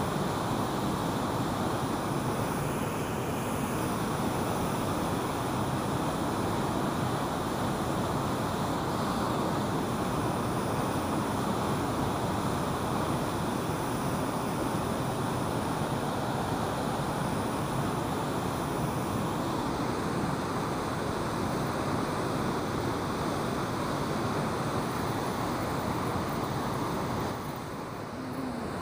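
Steady rushing of river water pouring through a weir's open gate and churning around the concrete pier below, a little quieter near the end.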